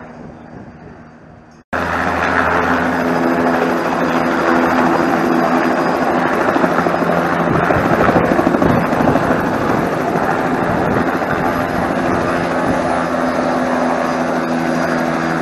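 A helicopter close by on the pad with its rotor turning, running loud and steady. In the first couple of seconds a more distant helicopter fades out before a sudden cut brings in the close one.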